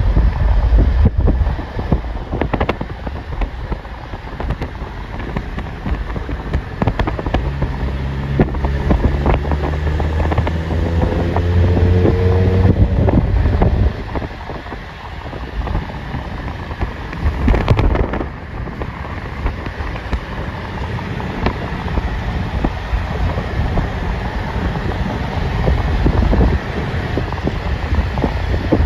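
Wind buffeting the microphone over a steady low rumble. For a few seconds about a third of the way in, an engine's note rises in pitch, and there are scattered knocks, the loudest about two-thirds of the way in.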